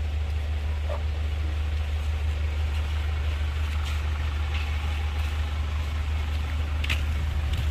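Chevrolet Captiva FL's common-rail turbodiesel engine idling with a steady low drone.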